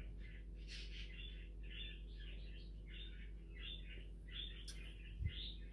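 A bird chirping over and over, about two or three short chirps a second, over a faint steady hum, with one soft knock near the end.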